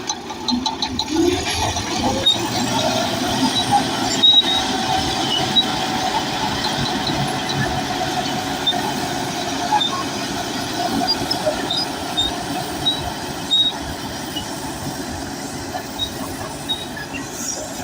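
Bulldozer working: its diesel engine running under a dense clatter from the steel crawler tracks, with many short high squeaks scattered throughout.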